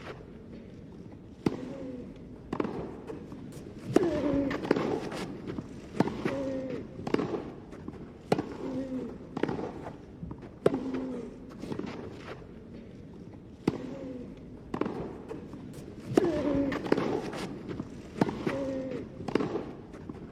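Tennis rally: a ball struck back and forth by racquets, sharp pops about once a second, most of them with a short vocal grunt or cry from the player.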